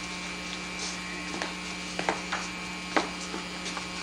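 Steady electrical mains hum on an old home-video soundtrack, with a few small clicks and knocks scattered through, the sharpest about three seconds in.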